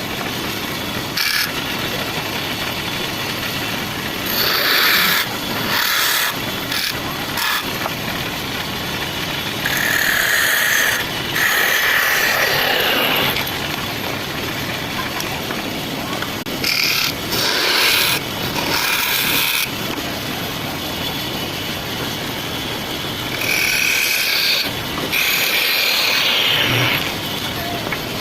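Wood lathe running steadily, with a turning tool cutting into the spinning wood in several passes, each a louder hiss lasting a second or two.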